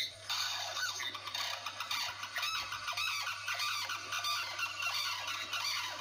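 Birds calling: many short, overlapping high calls rising and falling in pitch, going on without a break.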